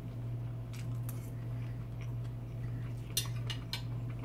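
A metal fork clinking and scraping against a dinner plate: a few light clicks, then a cluster of sharper clinks about three seconds in. A steady low hum runs underneath.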